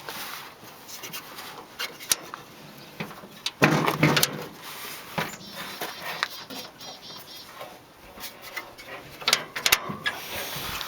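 Scattered clicks and knocks of small things being handled, with a louder rustling clunk about four seconds in.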